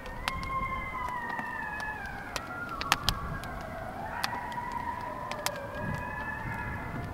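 Long wails gliding slowly up and down in pitch, several of them overlapping, with scattered sharp clicks.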